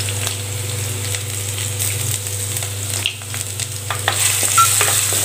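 Garlic cloves sizzling in hot sesame oil in a clay pot, over a steady low hum. From about three seconds in, a wooden spatula stirs them, adding short scrapes and clicks against the pot.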